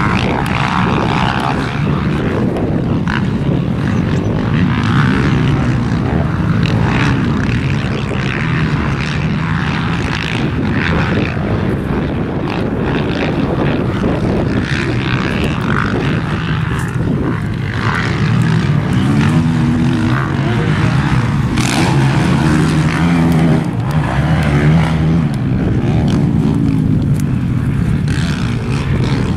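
Several motocross dirt bike engines revving hard and shifting as they race around the track, their pitch repeatedly rising and falling.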